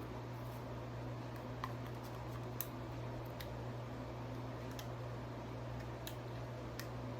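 Scattered small clicks from handling a compact digital camera while fitting its battery, about seven over the stretch, over a steady low hum.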